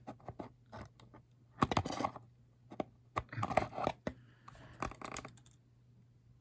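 Scissors snipping and plastic toy packaging being scraped and rustled while a figure is cut loose from its box, in three short spells of scratchy handling among scattered clicks. A faint steady hum lies underneath.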